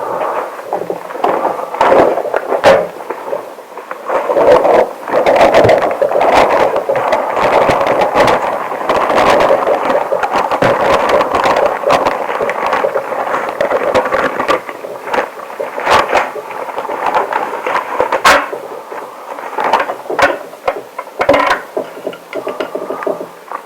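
Long rubber gloves rubbing against each other, a dense run of friction with many short sharp squeaks and snaps, steadiest and loudest through the middle stretch.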